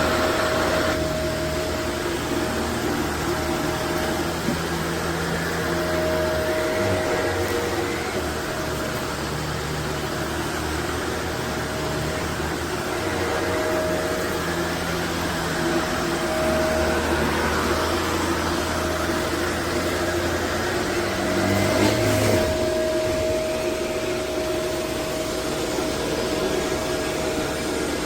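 Upright vacuum cleaner running steadily: a continuous motor whine with a steady tone and a low hum that rises and falls a little, louder for a moment about three-quarters of the way through.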